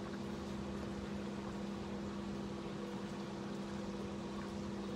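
Steady low electric hum of a pump motor running, which the girl takes for the pool's filter pump.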